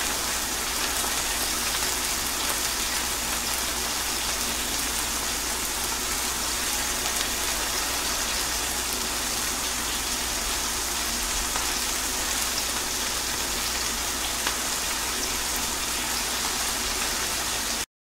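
Steady rain falling on a wet hard surface: a dense, even hiss of many drops that cuts off suddenly near the end.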